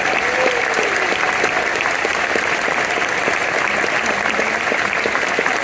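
Audience applauding steadily, with one short cheer rising and falling about half a second in.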